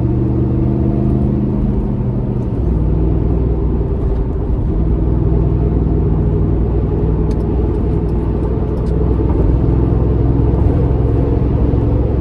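Toyota 4.7L V8 through a Magnaflow Overland stainless cat-back exhaust, heard from inside the cabin as the SUV drives onto the highway: a steady low rumble with road noise, its tone shifting about two and a half seconds in, then settling into a steady highway cruise.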